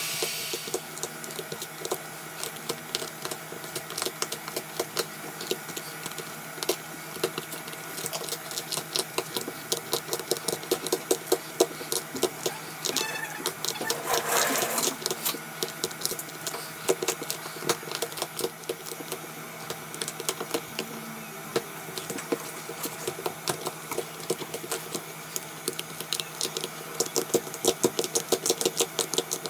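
Small metal hand tools scraping and chipping at the cracked glass back of an iPhone 8 Plus: many irregular sharp clicks and scratches, with a louder rushing scrape about halfway through. A heat gun's hiss cuts off just after the start.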